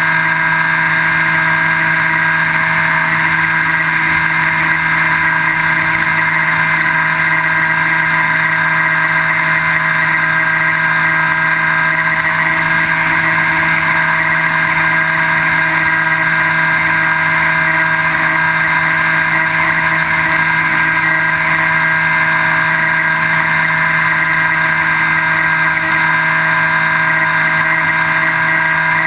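Skywalker V3 RC plane's electric motor and propeller running at a steady cruise throttle, a constant whine made of several unchanging tones. It is heard up close through a camera on the airframe.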